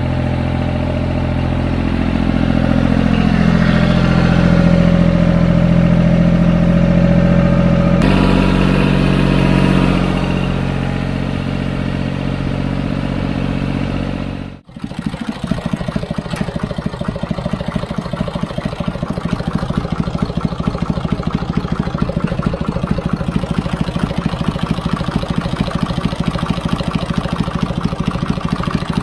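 Fiat 55-66 tractor's three-cylinder diesel engine running steadily, louder for several seconds in the first half. After an abrupt break about halfway, it idles with a rapid, even beat.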